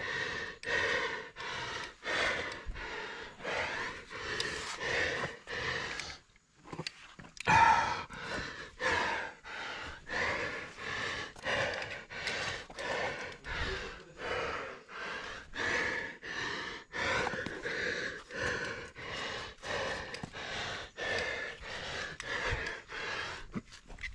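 A climber breathing hard and rhythmically from the effort of crack climbing, about two breaths a second, with a short pause about six seconds in and a louder breath just after it.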